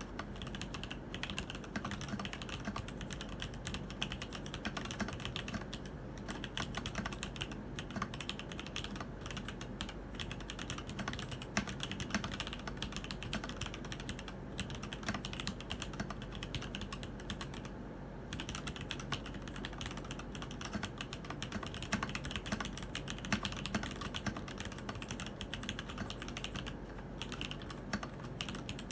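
Continuous typing on a Keydous NJ80 mechanical keyboard fitted with TTC ACE switches: a steady, rapid clatter of keystrokes, with a short pause about two-thirds of the way through.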